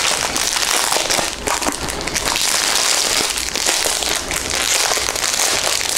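Thin clear plastic packaging crinkling and rustling as it is handled and unwrapped, a dense run of small crackles.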